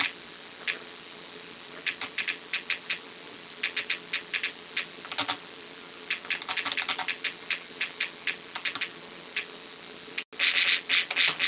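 Typing on keys: irregular clicks in short quick runs with pauses between them. A louder, denser run starts near the end after a brief dropout.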